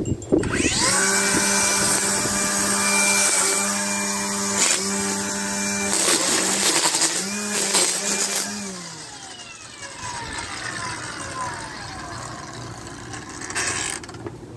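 DeWalt string trimmer spinning up with a rising whine and running at a steady high pitch as the line cuts grass, dipping briefly twice, then winding down with a falling whine about nine seconds in. It is a test run of a newly fitted trimmer head.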